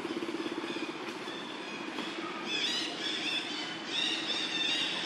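Small engine idling with a steady, rapid pulse. From about halfway through, birds chirp over it.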